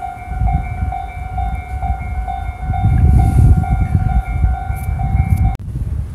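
Railway level-crossing alarm ringing steadily at about two strikes a second over a low rumble that swells about three seconds in. The ringing cuts off suddenly near the end.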